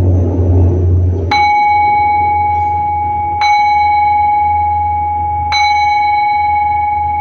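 Buddhist bowl bell struck three times, about two seconds apart, each strike ringing on with a clear, sustained tone into the next: the three strokes that open a chanting session. A low rumble from the preceding music fades out just before the first strike.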